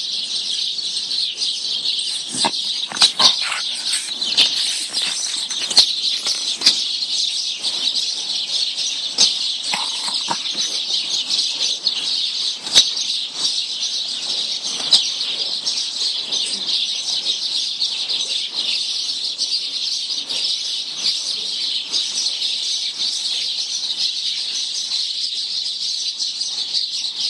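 Dense, continuous chirping of many birds, with scattered rustles and knocks close to the microphone.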